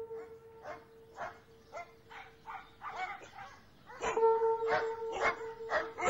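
Dogs barking in short repeated barks, about two a second, louder in the second half, over a held low musical note that drops out near the middle and comes back.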